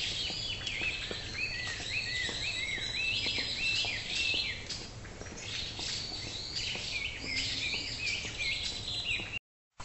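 Songbirds chirping in a quick, continuous series of short arching notes, over a faint steady outdoor hum. The audio cuts out abruptly for a moment near the end.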